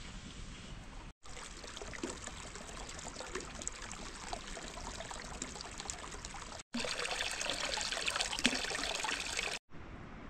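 Water trickling and pouring, with small splashes. The sound breaks off for an instant three times and is louder between the second and third breaks.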